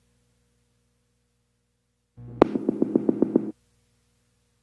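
Electronic background music: a short synthesizer phrase with a quick, even beat about two seconds in, between stretches of near silence.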